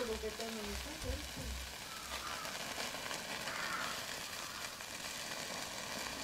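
Duck meat sizzling and crackling steadily in a hot pan in its own fat.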